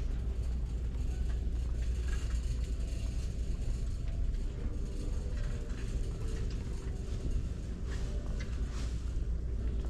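Steady low rumble of a handheld camera being carried at a walk, with a few faint taps of footsteps.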